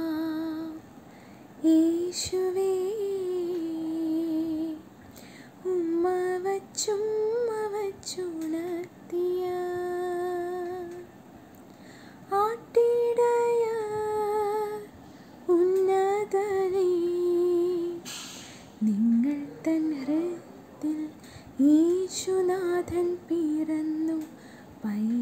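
A young woman singing solo and unaccompanied. She sings in short phrases of held notes that bend gently, with brief pauses between them.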